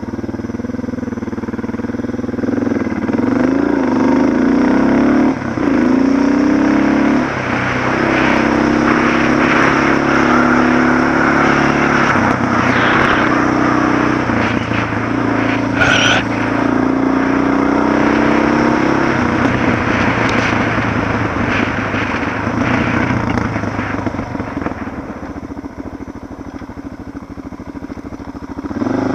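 Suzuki DR650's single-cylinder four-stroke engine running under way, its pitch rising and falling with the throttle. There is a brief sharp knock about halfway through, and the engine eases off and quietens near the end.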